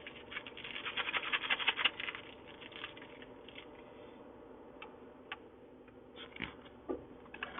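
Paper sugar packets being handled and sugar poured into a cup of coffee: a quick run of small crackling ticks for about two seconds, then scattered light clicks.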